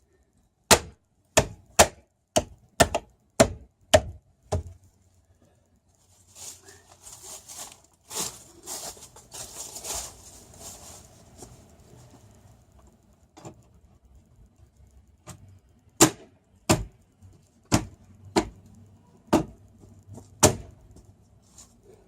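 A series of sharp hammer blows, about two a second, in two runs, with scraping and rustling between them. The blows are a hammer driving a socket onto damaged wheel nuts that the socket will not seat on otherwise.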